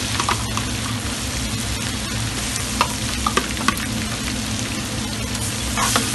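Seasoning sizzling as it fries in a pot, stirred with a spoon that clicks against the pot a few times near the middle.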